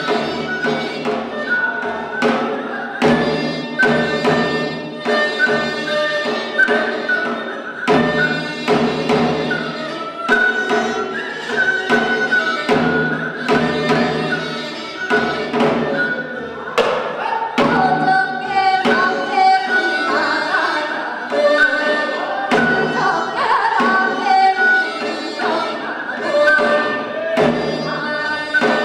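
Live Korean traditional music: a janggu hourglass drum keeps a beat of repeated strokes under a melody line that bends and slides in pitch.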